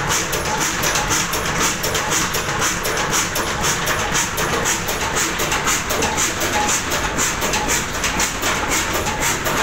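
Ruston Hornsby stationary diesel engine running steadily, its even, repeating mechanical beat going without a break.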